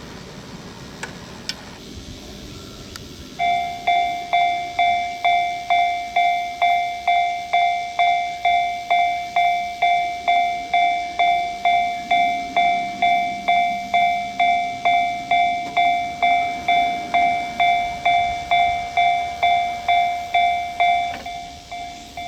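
Japanese railway level-crossing warning bell starting about three seconds in, ringing a steady "kan-kan" of about two strikes a second, then dropping to a quieter ringing near the end.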